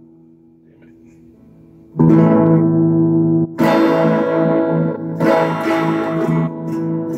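Electric guitar played by a beginner: after a quiet couple of seconds, chords are strummed about two seconds in and then again every second or so, each left to ring. These are simple open chords, the A and E chords he is just learning.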